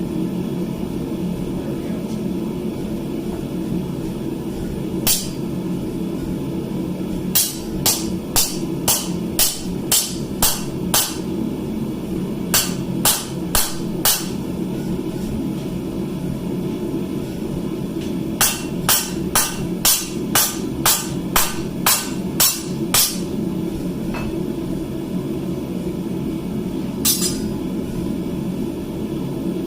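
Hand hammer striking hot steel on an anvil during forging, in runs of blows at about two a second with pauses between, over a steady low hum.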